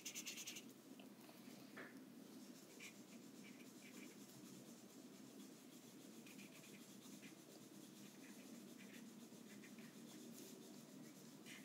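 Felt-tip marker colouring on paper: faint short strokes, on and off.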